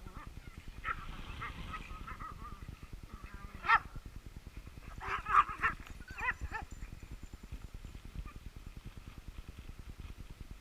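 A dog barking: one sharp bark a little under four seconds in, then a quick run of several more barks about a second later.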